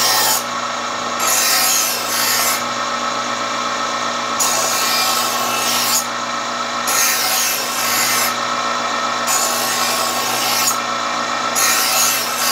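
Chef's Choice Diamond Hone Model 100 electric knife sharpener's motor running with a steady hum while a dull straight-edge knife is drawn through its diamond-abrasive slot: about six rasping grinding strokes, each a second or so long, with short pauses between them.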